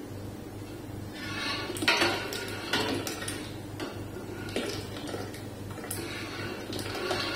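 A long stainless-steel ladle stirring milk in a large steel stock pot, scraping and clinking irregularly against the pot, while melted china grass (agar) is poured slowly into the milk in a thin stream. A steady low hum runs underneath.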